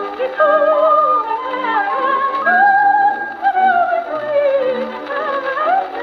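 Victrola VV 1-90 phonograph playing a 1927 Victor 78 rpm record: a coloratura soprano sings with vibrato over orchestral accompaniment. The old acoustic recording has no high treble.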